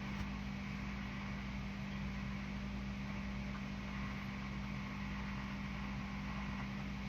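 Steady machine hum with a constant low drone and an even hiss over it.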